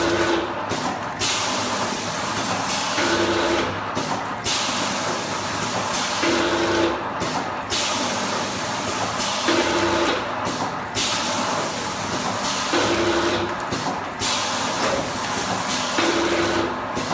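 Vertical bag packing machine running, working through one packing cycle about every three seconds: a steady hiss broken by short pauses, with a brief hum at the start of each cycle.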